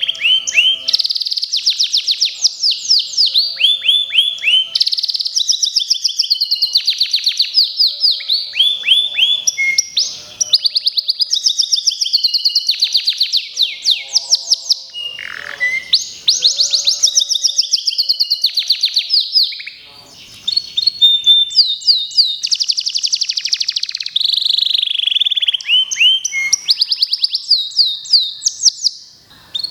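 Local Indonesian canary (kenari lokal) singing a long run of rapid trills and repeated high, quick notes, with a short break about twenty seconds in and another near the end.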